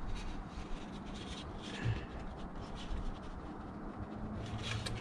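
Faint rustling and rubbing of a sheet of paper being handled as a makeshift funnel.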